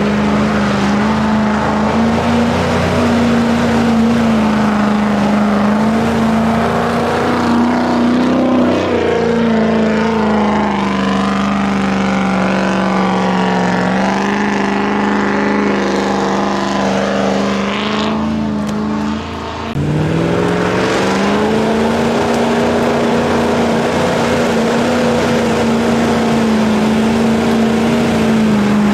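Land Rover Discovery's tuned Rover V8 engine pulling hard at steady revs as the truck ploughs through deep mud. About two-thirds of the way through, the revs drop briefly, then climb back and hold.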